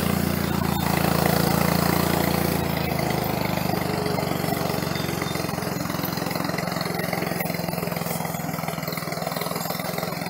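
Off-road vehicle's engine running steadily at low speed, heard from on board, with a low even drone that eases slightly after about three seconds.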